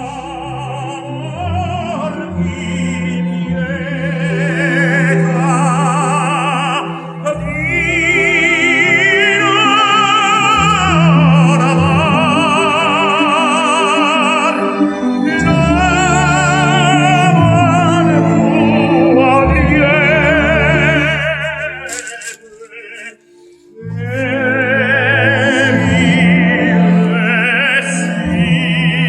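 Operatic singing with a strong vibrato over classical accompaniment, played back through Harbeth P3ESR monitor speakers. The music breaks off briefly about 22 seconds in, then resumes.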